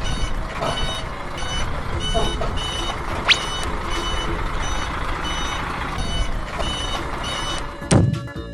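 Toy truck's electronic reversing beeper sounding a regular high beep about twice a second, over a steady mechanical hum. A brief rising squeak about three seconds in and a knock near the end.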